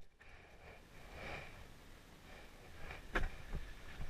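A paintball player breathing softly close to the microphone, then one sharp knock about three seconds in, followed by a few low thumps of movement.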